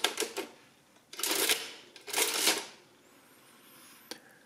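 Olivetti Summa 15 mechanical adding machine: a quick run of key clicks ends about half a second in as a number is entered on its keyboard. Then come two longer mechanical strokes about a second apart, the hand-operated side lever being pulled and returning to run the add-and-print cycle. There is a single click near the end.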